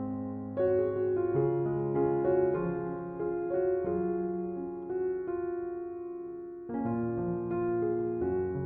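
Background piano music: a slow melody of single notes over sustained chords, dipping softly before a new chord comes in near the end.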